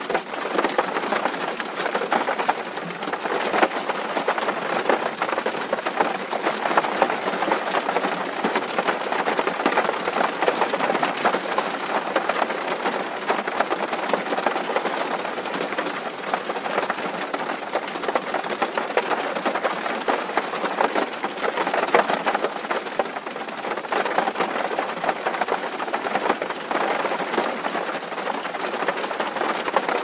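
Heavy rain falling on a corrugated tin roof: a dense, steady patter of countless small drop hits that holds even throughout.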